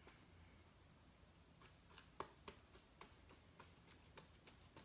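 Near silence with scattered faint ticks, the clearest about two seconds in: a paintbrush dabbing and mixing acrylic paint on a plastic palette plate.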